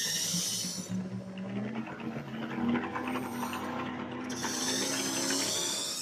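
Small electric motor and gearbox of an RC-converted toy Jeep whining as it crawls up a gravel slope, with loose gravel crackling under the tyres, the crackle loudest near the start and again in the last couple of seconds.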